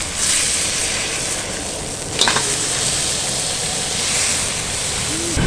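Meat sizzling and frying in a steel skillet with wine just poured in, being stirred and turned with tongs over a wood fire; one sharp knock of the tongs against the pan about two seconds in.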